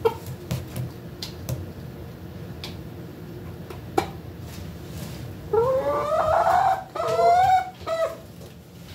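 A hen calls in a loud run of pitched, rising and wavering cries for about two and a half seconds past the middle. Before that come scattered sharp taps, her beak pecking at water in a plastic cup.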